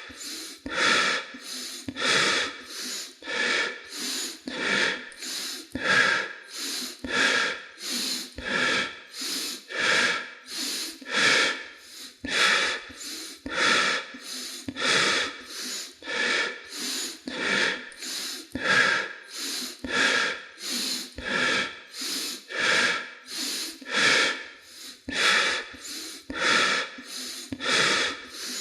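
A person breathing rapidly: quick, evenly paced breaths in and out, heard as rushes of air that alternate louder and softer strokes.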